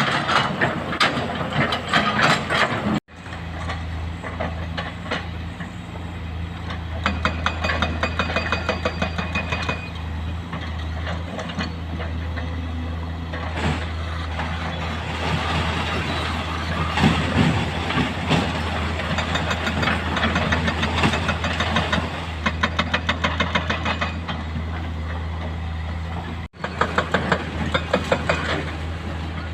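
Heavy excavator's diesel engine running steadily, with several stretches of fast, even hammering. The sound cuts out abruptly twice.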